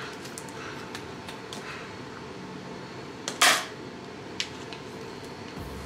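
Kitchen handling sounds during cooking: a few faint clicks, then one short, loud burst of noise about three and a half seconds in and a smaller click a second later, over a steady background hum.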